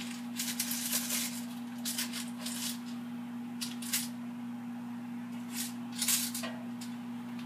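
Small spatula scraping and clicking against the Power XL air fryer's basket while catfish fillets are flipped: a string of short, sharp scrapes and taps, loudest about a second in, at four seconds and at six seconds, over a steady low hum.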